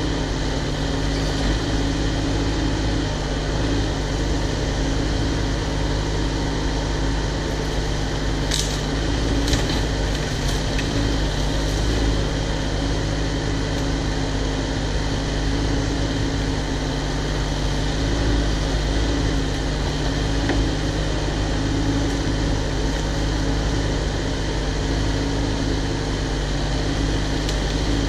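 Cat 304 mini excavator's diesel engine running at a steady speed, with a few short sharp clicks about nine to ten seconds in.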